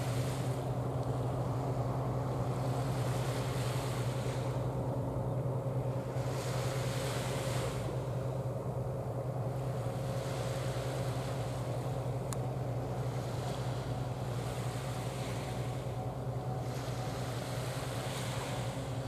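Steady low drone of a large bulk carrier's engine passing offshore, under wind and water noise that rises and falls every few seconds.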